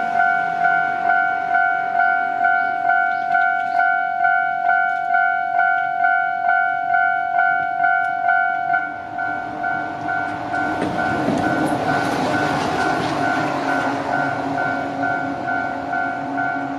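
Japanese level-crossing warning bell ringing, a steady repeated electronic ding about every 0.7 seconds. From about ten seconds in, an electric train passes through the crossing, its wheel and running noise swelling to the loudest part while the bell keeps ringing.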